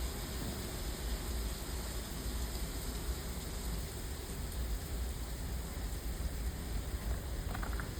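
Water falling through a gap in the ice: a steady, continuous rushing of falling water.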